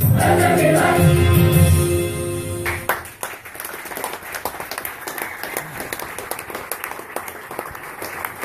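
A choir singing over music ends the song on a held chord that cuts off abruptly just under three seconds in, and the audience breaks into applause.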